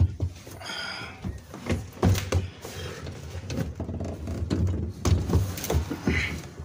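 Irregular knocks, clunks and rubbing from a phone being handled and moved around the greasy chain-drive area of an all-terrain vehicle, with a brief squeak about a second in.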